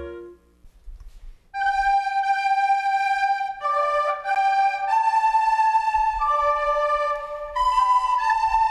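Flute music: after the last chord of the previous song dies away and a short pause with a few soft low thumps, a flute starts a melody of held notes about a second and a half in, at times with a second line sounding alongside.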